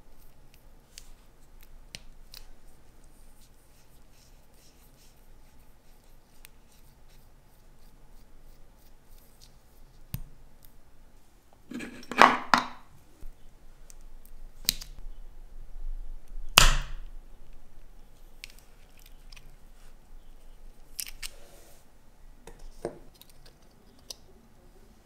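Watchmaker's small hand tools being handled at the bench: scattered light clicks, a clattering rattle of tools picked out of a wooden tool caddy about twelve seconds in, and a single sharp click a few seconds later.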